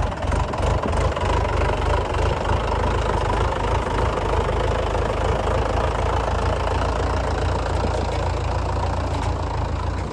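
Heavy diesel engine running steadily with a low, even rumble, from the backhoe loader or tractors working the mud loading.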